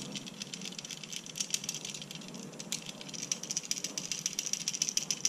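Rollei Monkey Pod flexible tripod shaken by hand, a loose plastic flap on its head rattling in rapid clicks that grow busier and louder about halfway through. The flap swings freely instead of staying put.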